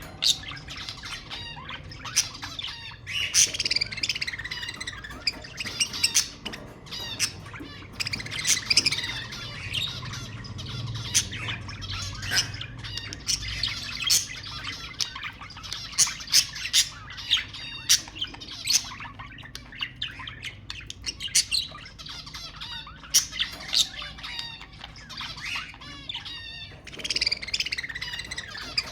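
Budgerigars chattering without a break: a dense stream of quick chirps, sharp squawks and clicky calls.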